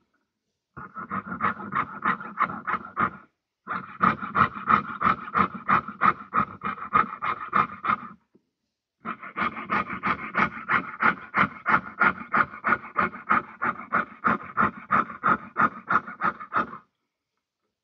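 Jeweller's piercing saw cutting through sheet metal on a bench peg: quick rhythmic rasping strokes, about three to four a second, in runs with short breaks.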